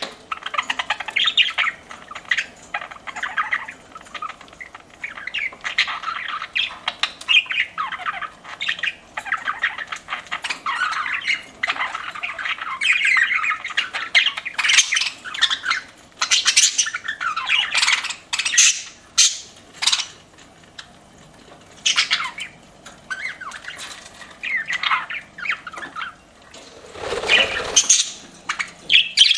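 Several budgerigars chirping and warbling continuously, with quick high chirps and squawks overlapping.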